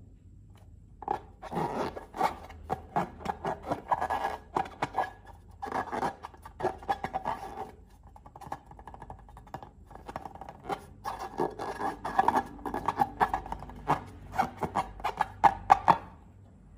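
Slime being mixed and squeezed by hand, sticky clicking and squelching in irregular stretches with brief lulls.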